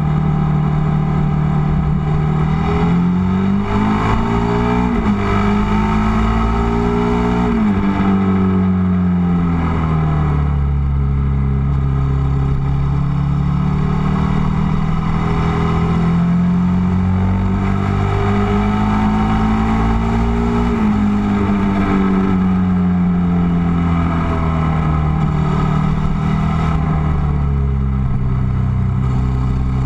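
Ducati Multistrada motorcycle engine under way on a winding road, its revs rising and falling with the throttle, dropping suddenly at about five and eight seconds in like gear changes, then climbing slowly for several seconds before easing off. Wind rushes over the bike-mounted microphone.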